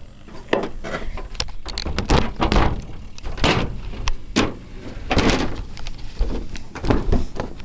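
Irregular knocks, clunks and rattles of parts and loose items being handled on an old pickup truck, with a longer scraping rustle about five seconds in.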